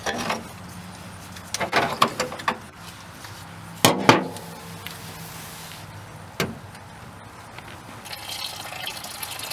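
A few knocks and clicks of hands working at the bottom of a radiator, then from about eight seconds in, engine coolant draining from the radiator and pouring in a thin stream into a drain pan.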